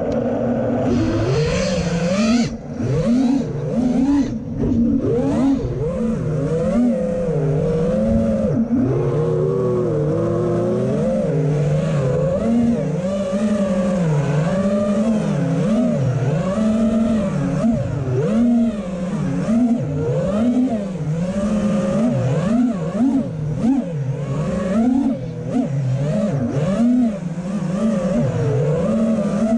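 FPV freestyle quadcopter's brushless motors and propellers whining in flight, the pitch rising and falling constantly as the throttle is worked.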